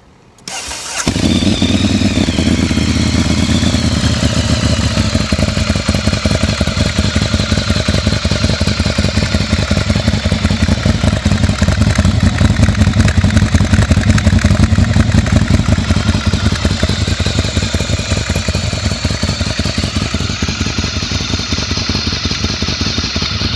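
Ducati Monster 1100 Evo's air-cooled 1078 cc L-twin, breathing through an SC-Project aftermarket exhaust, cranks briefly on the starter, fires about a second in, then idles steadily.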